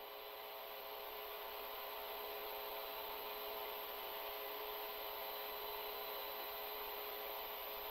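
Steady hiss with a faint electrical hum from an open broadcast audio line carrying no voice, growing slightly louder: the remote caller's audio has dropped out.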